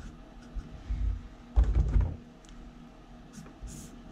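Felt-tip marker writing on paper laid on a table, with scattered small taps and a dull thump about a second and a half in. Short, scratchy marker strokes follow near the end.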